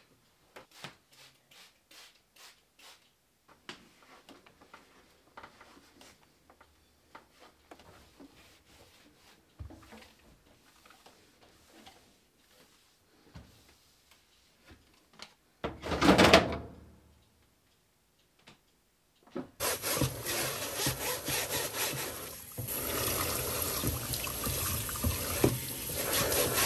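Cloth wiping and rubbing over a front-loading washer's door glass and rubber seal and a dryer's door opening, with soft squeaks and light taps. About 16 s in there is a brief loud whoosh. From about 19 s a tap runs steadily into a sink.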